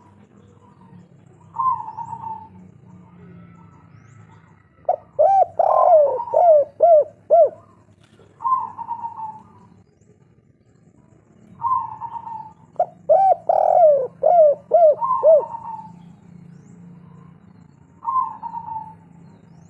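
Spotted dove (tekukur, the local 'kuk 3' song type) cooing. Short single coo phrases alternate with two longer phrases of quick rising-and-falling notes, starting about five seconds in and again about twelve and a half seconds in.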